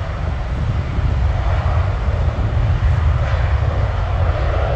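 Business jet's turbofan engines running: a steady low rumble, with a jet roar that builds in the middle range and is loudest near the end.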